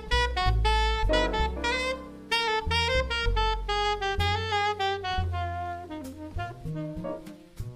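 Jazz ensemble playing: a saxophone carries a moving melodic line over bass, with a few drum strokes near the end.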